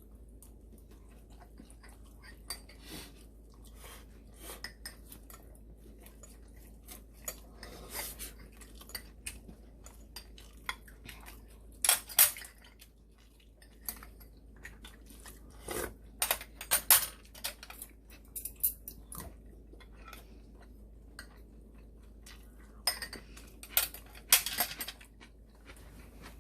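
Cutlery clinking and scraping against bowls and dishes during a meal: scattered sharp clinks over a quiet background, bunched in short flurries about halfway through, around two-thirds of the way and near the end.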